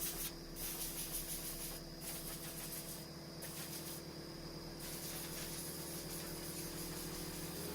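Air blower hissing as it blows dust off weathered wooden boards, with a steady hum under it; the high part of the hiss drops out briefly several times as the air is let off and on.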